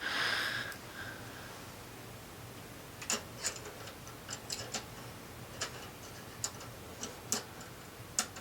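Brief scrape, then a dozen or so light, irregularly spaced clicks and taps of small metal parts being handled and seated on a Singer 600 Touch N Sew sewing machine, as the throat plate is fitted and locked in place.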